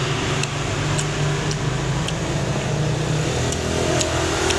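Steady low mechanical hum, like an engine or motor running, with a few faint clicks scattered through it.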